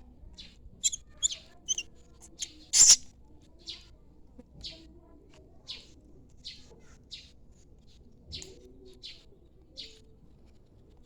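Nestling starlings (jalak) chirping: a series of short, high chirps, about one a second, with a louder, sharper burst about three seconds in.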